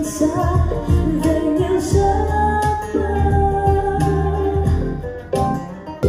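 A song with singing over guitar and bass, played back through a B&O Beoplay A9 Mk4 wireless speaker at 65% volume and picked up in the room.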